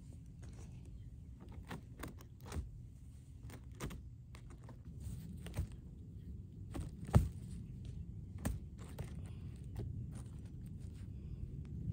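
Hands scuffing and rustling on woven plastic landscape fabric and poking into soil while setting zinnia sprouts into planting holes. A scatter of soft scrapes and clicks, with one sharper knock about seven seconds in, over a low steady rumble.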